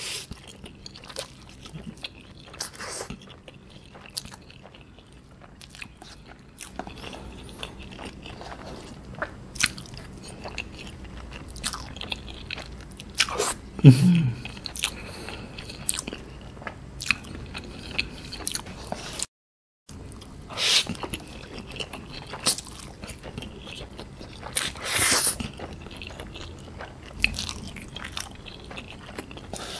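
Close-miked mouth sounds of a man eating instant ramen noodles in a creamy sauce: steady wet chewing and lip smacking, broken by a few louder, longer noodle slurps.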